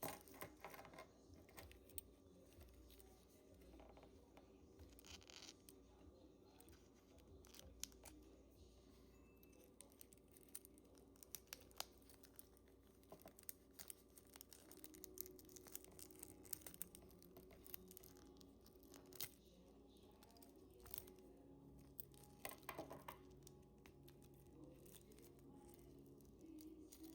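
Faint handling noises: scattered light clicks and short rustles as a watch and its packaging are handled.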